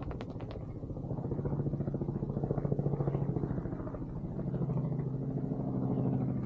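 An engine droning steadily, its pitch stepping down slightly about four seconds in.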